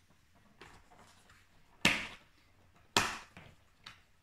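The stiff cardboard door of an advent calendar being forced open: two sharp cracks of tearing cardboard about a second apart, with a few fainter scrapes around them.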